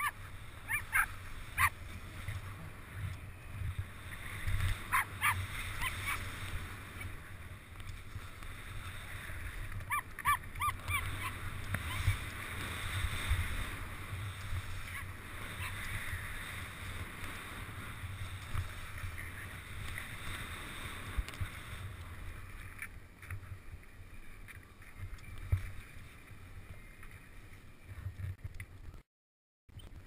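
Skis sliding and scraping over snow during a downhill run, with wind rumbling on a helmet-mounted camera and a few short, sharp sounds now and then. The sound cuts off suddenly near the end.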